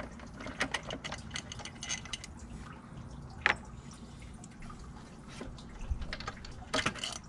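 Irregular light clicks and taps of metal parts and hand tools being handled while a throttle body is removed, with one sharper click about three and a half seconds in, over a low steady hum.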